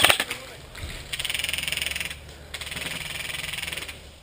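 Airsoft guns firing on full auto: a loud burst cuts off right at the start, then two quieter bursts of rapid, even shots follow, each about a second long, with a short gap between them.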